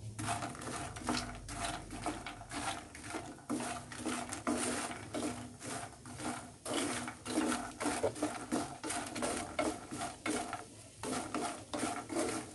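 Puffed fox nuts (makhana) stirred with a wooden spatula in a non-stick kadhai as they roast in ghee. They make a busy, irregular rattling and scraping as the light puffs tumble against the pan.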